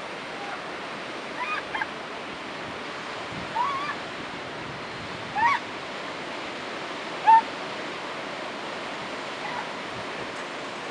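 Steady surf on a rocky shore, with several short, high yelping calls from young northern elephant seals spread through it. The loudest call comes a little past the middle.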